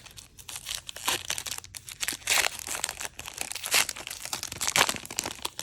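Wrappers of trading-card packs crinkling and rustling as packs are unwrapped and the cards handled: an irregular crackle with a few louder crinkles.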